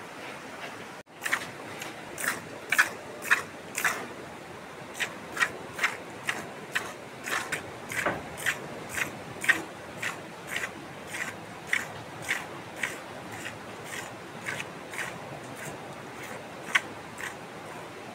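Cow being milked by hand: short squirts of milk in a regular rhythm, about two a second, starting about a second in.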